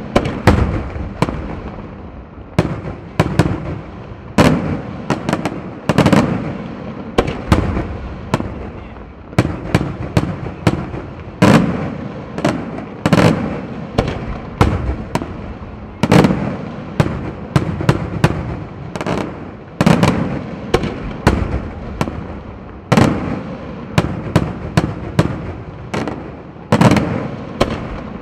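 Daytime aerial firework shells bursting in a continuous barrage. Loud bangs come about one or two a second, sometimes in quick pairs, each trailing off in a low rumble.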